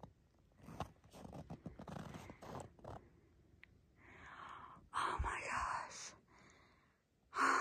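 A hiker's breathing close to the microphone, with irregular crunching and rustling from moving through deep snow; two louder breaths come about four to six seconds in.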